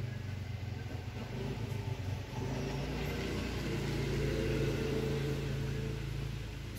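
A motor vehicle's engine passing, growing louder about two seconds in and fading near the end, over a steady low hum.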